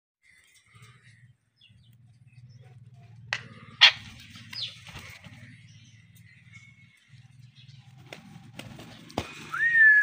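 Alexandrine and blue Indian ringneck parakeets chirping and whistling, with two sharp clicks a few seconds in, a short falling whistle just after, and a loud rising whistle near the end.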